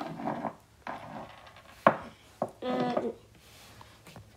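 Clay figurines handled on a wooden tabletop: scraping and rubbing with two sharp knocks near the middle. A short vocal sound from a child comes about three seconds in.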